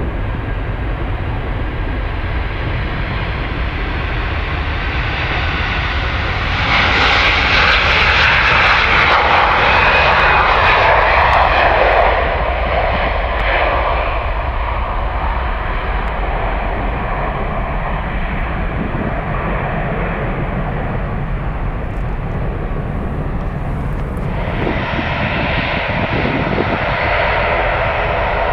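Airbus A330-200 twin-engine jet airliner taking off: a steady jet-engine rumble that swells loudest for about five seconds as the aircraft passes on its takeoff roll and lift-off, then fades as it climbs away. Near the end a second, higher engine noise rises from another airliner taxiing.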